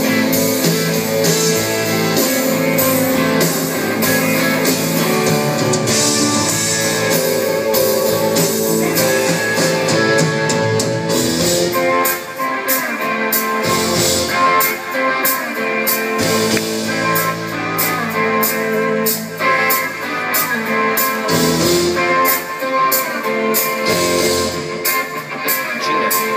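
Live rock band playing: electric guitar over a drum kit, heard from far back in the audience.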